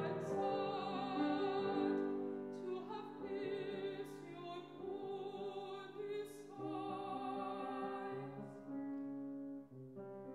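Mezzo-soprano singing an art song with wide vibrato, accompanied by a Yamaha grand piano. The voice stops near the end, leaving the piano playing alone.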